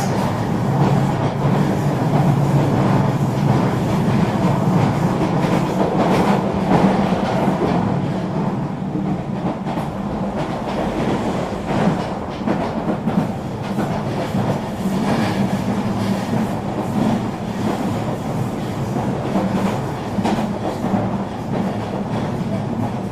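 Eurobahn regional train running along the line: steady rumble of wheels on rail with a low hum and scattered clicks and clatter as the wheels pass over track joints.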